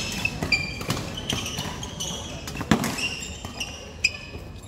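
Badminton rally: court shoes squeak over and over on the hall floor, with sharp racket strikes on the shuttlecock, the loudest about two and a half seconds in.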